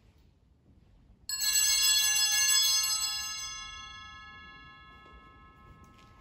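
A small church bell (sacristy or altar bells) is struck about a second in, giving a bright, many-toned peal that fades away over several seconds. It is the bell signalling the start of Mass as the priest enters the sanctuary.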